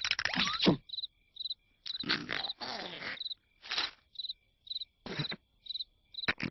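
Cricket chirping in short, high, regular pulses, about two a second. Several short noisy bursts of cartoon sound come in between.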